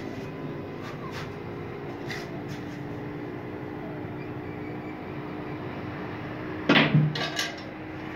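Snooker shot: a sharp click of the cue tip on the cue ball about two-thirds of the way in, followed at once by ball-on-ball clicks and a duller knock off a cushion. A steady low hum runs underneath, with a few faint clicks earlier.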